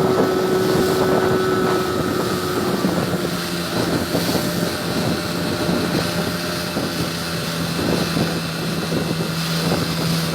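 A motorboat's engine running steadily under way, its pitch dipping slightly in the first few seconds, with wind buffeting the microphone.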